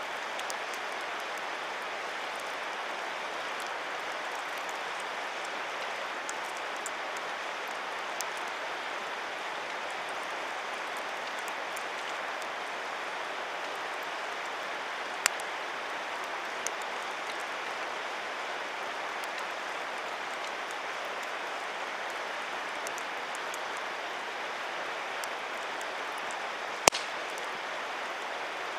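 Wood campfire burning, with scattered small crackles and two sharper pops, one about halfway through and a louder one near the end, over a steady rushing hiss.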